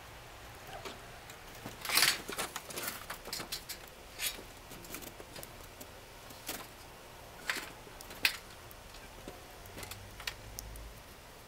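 Cats stepping on snow: scattered light crunches and clicks, a quick cluster about two seconds in, then single steps spread out.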